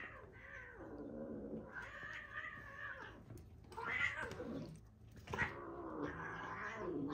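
Two tabby cats yowling while they play-fight: about four long, wavering calls one after another, the first falling in pitch.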